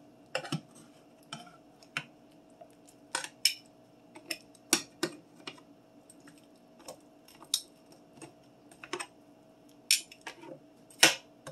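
Two metal forks clicking and scraping against a square nonstick skillet as pork slices and ramen noodles are turned over: irregular clacks, some louder than others, with a faint steady hum underneath.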